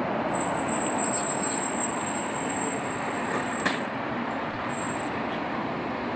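Steady background traffic noise. About four seconds in there is a brief, louder burst of noise lasting about half a second.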